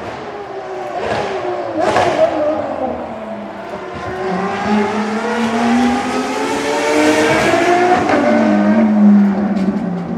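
A Ferrari XX Programme track car's engine on track. Its pitch falls with a few sharp cracks over the first two seconds, then it climbs steadily through the revs as it accelerates, shifting and pulling again near the end.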